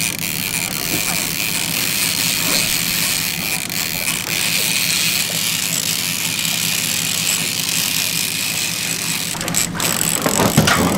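A heavy conventional fishing reel being cranked steadily, ratcheting as a snagged paddlefish is reeled in, over the steady hum of the boat's outboard motor.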